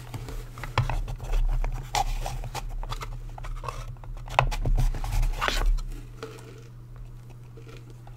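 Hands fitting a plastic collectible figure together and onto its stand: a run of small plastic clicks, taps and scrapes for about six seconds, then quieter, over a steady low hum.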